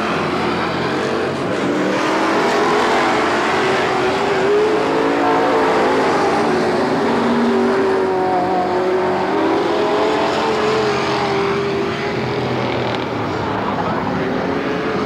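Several dirt-track stock car engines running hard as the cars circle the oval. It is a loud, steady mix of engine notes that waver up and down as individual cars accelerate and pass.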